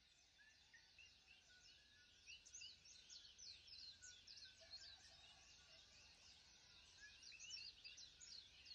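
Faint chorus of many small birds chirping, a dense overlap of quick, high, falling chirps.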